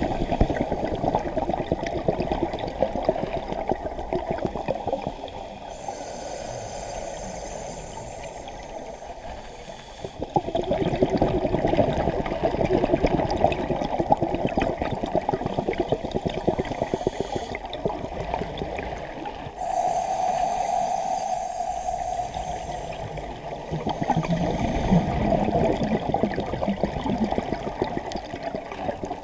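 Scuba diver's regulator breathing, heard underwater: long stretches of bubbling exhaled air, broken by quieter spells of inhalation hiss about six seconds in and again around twenty seconds in.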